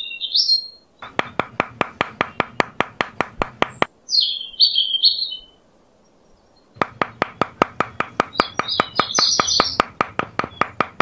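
Birds chirping in three short bursts, over a fast, even ticking of about five sharp clicks a second that stops for a few seconds in the middle.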